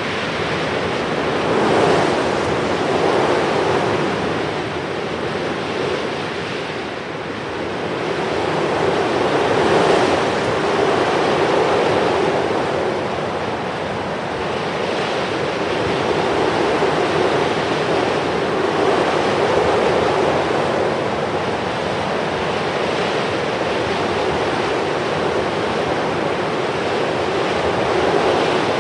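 A steady rushing wash of noise that swells and ebbs every few seconds, like surf.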